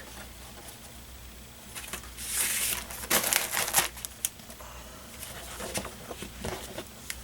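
Crinkling and rustling of a vinyl record's sleeve and paper inserts being handled, in a few short bursts with small clicks.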